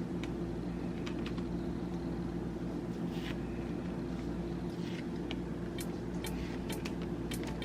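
A steady low hum runs throughout, with a few faint, light clicks and taps from the food being handled as salami slices are laid on the sandwich.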